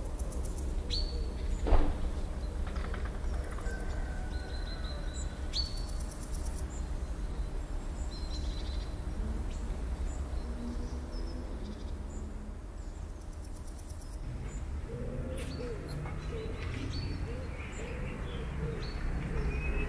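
Birds chirping in short, high calls that drop in pitch, scattered throughout over a low steady rumble, with one sharp knock about two seconds in. A dove cooing in the last few seconds.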